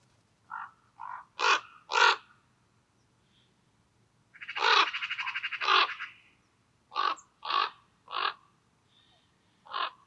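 Eurasian jays calling: a string of short, harsh screeches in twos and threes, with a longer rattling call about halfway through.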